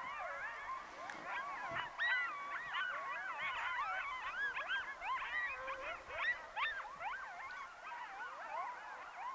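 Coyotes yipping and howling together in a group chorus, many quick rising and falling yips and wavering howls overlapping.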